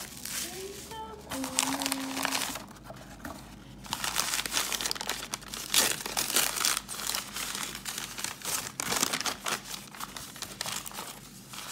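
Bubble wrap, then paper wrapping, crinkling and rustling as hands pull it from a box and unfold it, loudest in the middle.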